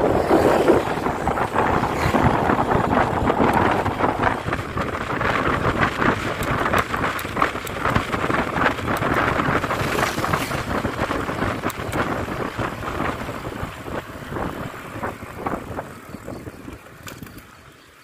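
Wind buffeting the microphone and tyre noise on asphalt from a mountain bike riding fast, a steady rushing noise that dies down near the end.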